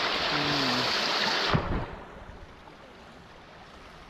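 Rushing water, loud and close, with a knock about one and a half seconds in; the rush then suddenly drops to a faint steady background of flowing water.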